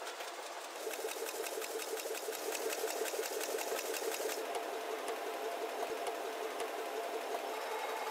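Paper-processing machinery running, a sheet feeder and rotary slitter, with a rapid, even mechanical clatter that picks up about a second in.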